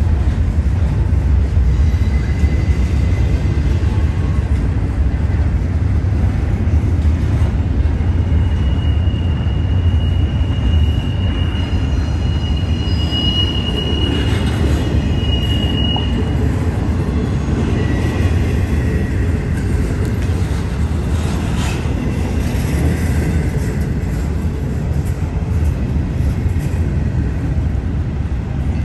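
CSX freight train rolling past with a steady, loud low rumble of cars on the rails. A high, steady wheel squeal rises over it from about eight to sixteen seconds in.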